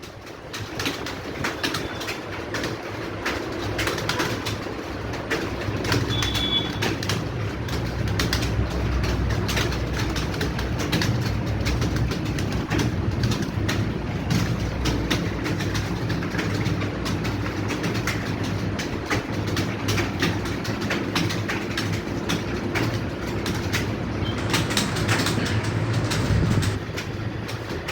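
Many computer keyboards clattering at once as a room full of typists type fast, a dense run of overlapping key clicks over a steady low hum.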